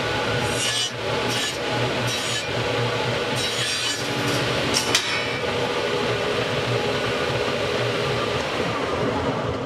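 Table saw running steadily while a thin wooden drum re-ring is fed into the blade. The blade bites into the ring in about five short cuts over the first five seconds, then the saw runs on without cutting.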